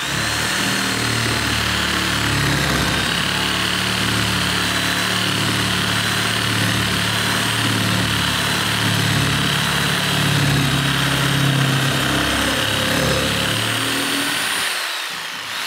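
A reciprocating saw with a long bi-metal wood blade cutting through a tough, seasoned log. The motor runs steadily under load throughout the cut. Near the end the motor's pitch falls away as the cut finishes.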